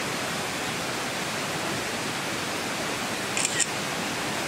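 River water rushing steadily past the campsite, an even hiss. Two short high ticks come about three and a half seconds in.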